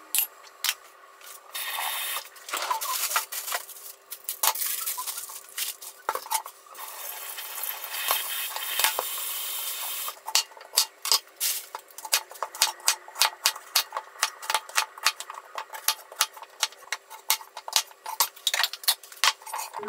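Rustling and clinking of pots and utensils at the stove. About halfway through, a kitchen knife starts chopping a carrot on a wooden cutting board: sharp knocks, roughly three a second.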